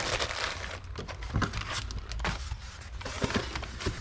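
Cardboard box and packing material being handled and pushed aside: rustling with scattered light knocks and scrapes.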